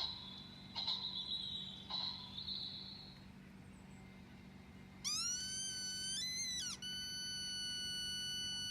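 Sound effects played back: a few short high chirps in the first three seconds. Then, about five seconds in, a long, high-pitched, very steady squeaky tone that glides up at its start, jumps briefly higher around a second later, then holds level.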